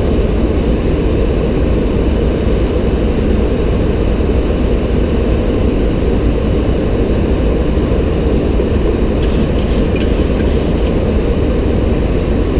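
Flight-deck noise of a Boeing 737-800 on approach: a steady, heavy low rush of airflow and engine noise. A few faint clicks come about nine to eleven seconds in.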